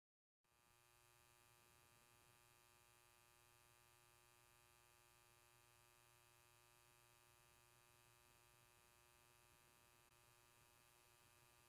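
Near silence: a faint, steady electrical hum and hiss, which drops out to dead silence for about the first half second.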